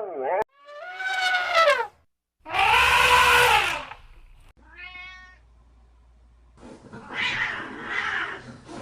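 A cat meowing: a series of separate calls that bend up and down in pitch, one longer and harsher than the rest, a short high one in the middle, and a rougher, noisier cry near the end.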